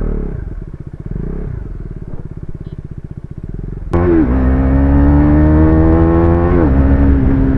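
Motorcycle with an aftermarket exhaust idling with a fast, even pulse, then revved up suddenly about four seconds in and held at higher revs, dipping briefly and holding again near the end. The exhaust note is only a little louder than stock, not very loud.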